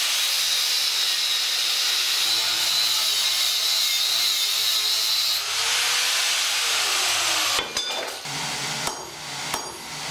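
Power grinder running steadily on steel with a high whine, cutting off about seven and a half seconds in, followed by a few sharp metal clinks.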